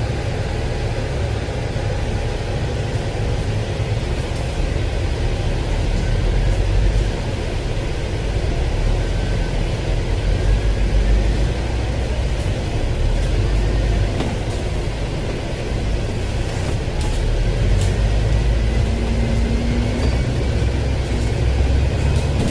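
Dennis double-decker bus heard from inside while under way: a steady low engine rumble with road noise. In the second half a faint whine rises in pitch as the bus picks up speed.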